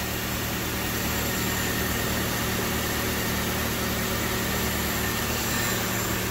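Honda Civic four-cylinder engine idling steadily, just back running after a head gasket replacement.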